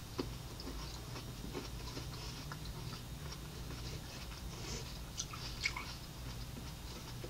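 Faint chewing of ripe cantaloupe, with small wet mouth clicks here and there, over a steady low hum.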